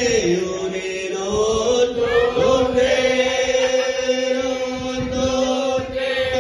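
A group of people chanting together in long held notes, a man's voice on a microphone leading, as a toast chant with glasses raised. One held note sags and comes back up about a second in.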